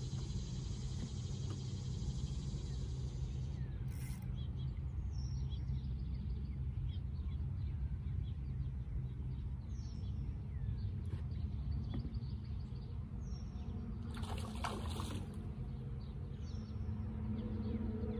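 Outdoor pond-side ambience: a steady low rumble under a bird that repeats a short falling chirp every few seconds. An insect buzz cuts off a few seconds in, and a brief rushing noise lasts about a second late on.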